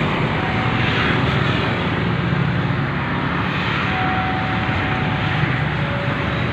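A steady low rumble with a wash of noise, like an engine or vehicle running.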